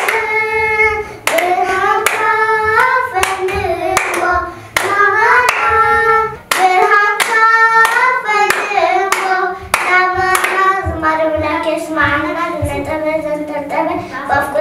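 Two young girls singing a church hymn together, clapping their hands in time at about two claps a second. The clapping stops a little over ten seconds in while the singing goes on.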